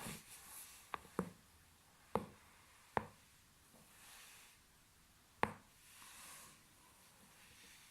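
Sharp cracks from a person's spine popping as the back is cracked: five of them, two close together about a second in, then one at about two seconds, one at three, and one more about five and a half seconds in.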